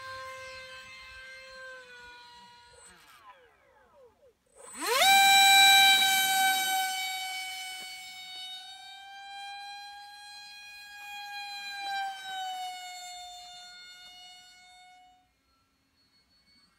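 Electric ducted fan of a Robbe Arcus EDF 1400 hotliner model glider whining in flight. Its pitch sinks and it fades almost to nothing, then about five seconds in it spools up sharply to a loud, high whine. The whine holds and slowly fades until it stops suddenly near the end.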